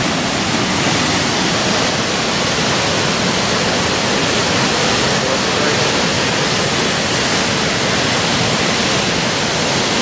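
River whitewater rushing through a concrete chute and down a rocky falls: a loud, steady rush of water.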